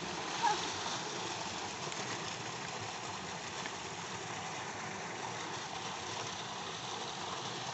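Steady rush of water pouring from a tubewell's outlet pipe and splashing into a concrete tank.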